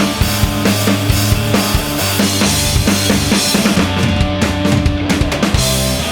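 Rock music with a driving drum kit: bass drum and snare beating steadily under sustained bass notes.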